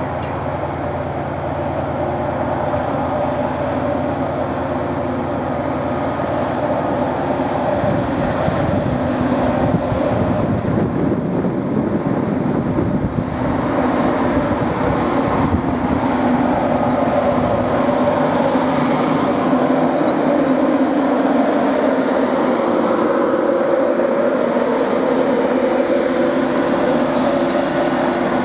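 Class 91 electric locomotive hauling Mark 4 coaches, running slowly into the platform and growing louder as it draws alongside. A steady hum comes from the locomotive from about twenty seconds in.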